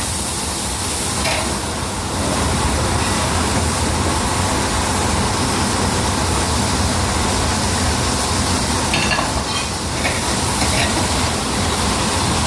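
Escalopes sizzling steadily in a hot frying pan, with a few brief clicks of a utensil late on.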